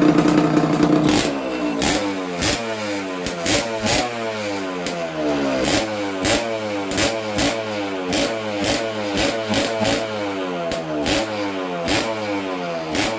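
Suzuki X4's two-stroke engine running fast and steady, then from about a second in revved up and down over and over in quick throttle blips, with sharp pops scattered through the revving.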